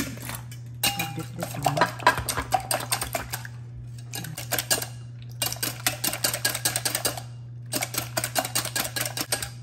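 Raw eggs being beaten by hand in a ceramic dish: the utensil clicks and scrapes rapidly against the dish in three bouts, pausing briefly about three and a half seconds in and again about seven seconds in.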